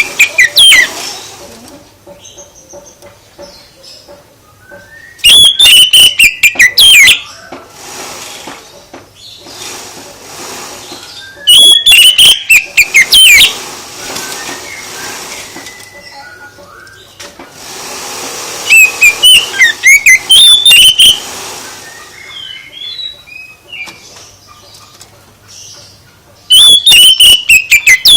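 A songbird singing loud phrases of rapid whistled and chattering notes, about every six to seven seconds, with faint chirps in between.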